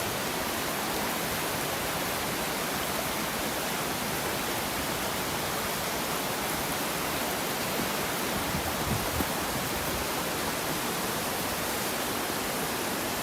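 River water running steadily beside a snowy trail: an even, unbroken hiss of flowing water.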